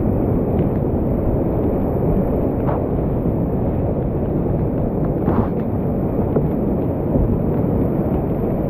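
Whitewater rapids of a creek in high flood, rushing steadily and loudly, with a couple of brief sharper sounds about three and five seconds in.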